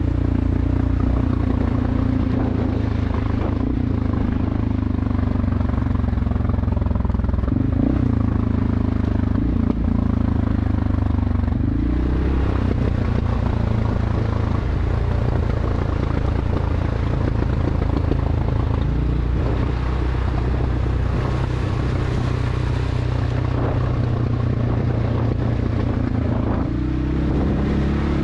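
CFMoto 600 ATV's single-cylinder engine running under way on a rough dirt trail, its note rising and falling with the throttle.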